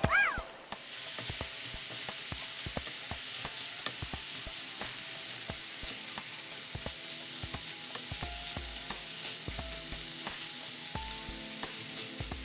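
Minced beef and diced carrots sizzling in a hot frying pan while being stirred, the utensil clicking and scraping against the pan over a steady sizzle.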